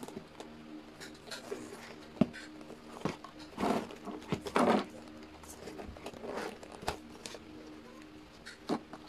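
Plastic bowl and lid of a self-heating rice meal being handled and opened by hand: a few sharp plastic clicks and knocks, with two longer scraping rustles in the middle as the lid is worked loose and lifted. A faint steady hum sits underneath.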